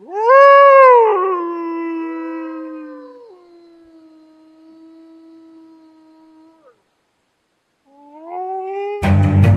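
Wolf howling: one long howl that swoops up, drops after about a second and holds a low note for several seconds before fading, with a second howl overlapping it for a moment. A new rising howl starts near the end, just as music comes in.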